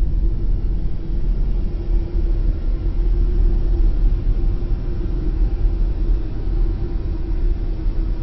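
Dark ambient drone: a deep, steady rumble with one held low tone above it and a faint hiss, unchanging throughout.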